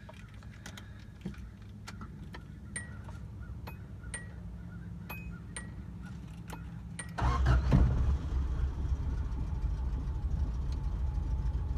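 A few light clicks, then about seven seconds in the 1984 Subaru GL's 1.8-liter carbureted flat-four cranks briefly, catches and runs steadily. It is a cold start on the choke, which is stuck on.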